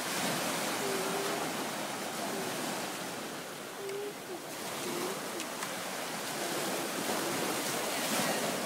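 Small waves breaking and washing up on a sandy beach, a steady hiss of surf that swells at the start and again near the end.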